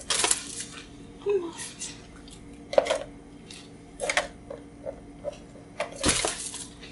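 Small toy slinky springs clinking and rattling in several short bursts as they are handled, set on a cardboard box and flop down onto the table. The loudest rattles come at the start and about six seconds in.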